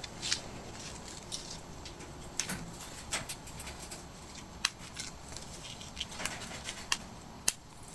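Small plastic bags of diamond-painting drills being handled: irregular soft clicks and light crinkles as the bags are picked up and the drills shift inside.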